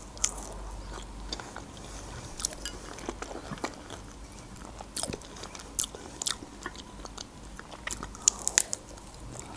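Close-miked biting and chewing of fresh strawberries: scattered short mouth clicks, with another strawberry bitten near the end.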